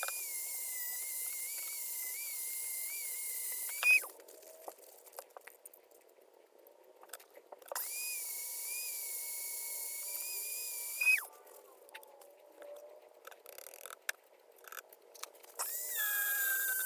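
Small high-speed power tool motor whining steadily at a high pitch. It stops about four seconds in, spins back up near the eight-second mark, stops again a few seconds later, and starts once more near the end at a lower pitch. Light clicks and handling noises fall between the runs.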